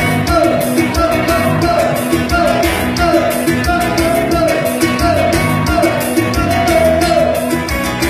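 Live band music with a steady beat: acoustic guitar, keyboard and drums playing a passage in which a short riff repeats about every three quarters of a second.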